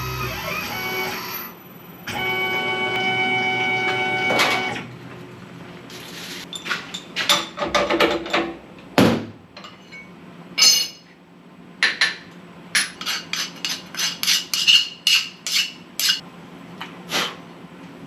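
A machine runs with a steady whine of several tones for about two and a half seconds and stops suddenly, followed by a long series of sharp, irregular metal clinks and knocks of tools and a metal workpiece being handled.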